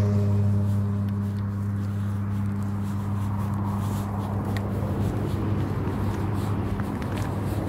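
A motor vehicle engine running with a steady low hum that fades slightly over the first couple of seconds, with faint footsteps.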